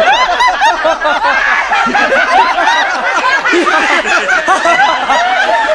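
A group of men laughing together, several voices overlapping in continuous loud laughter.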